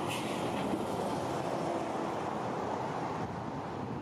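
Heavy tractor unit pulling a low-loader trailer passing close by: steady engine and tyre noise.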